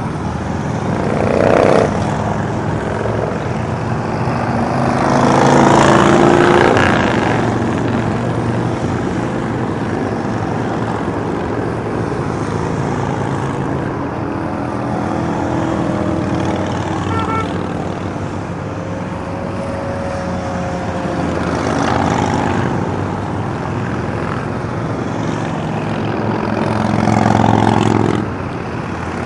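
Motorcycles passing one after another on a highway, their engines swelling and fading as each goes by over a steady hum of traffic. The loudest pass comes about six seconds in; another swells near the end and cuts off suddenly.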